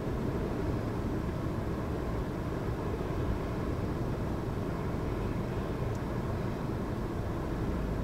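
Storm-force wind, a steady low rumbling noise with no let-up.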